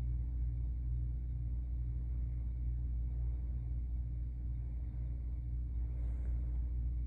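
Steady low rumbling hum, unchanging throughout, with no sneezes or other distinct events.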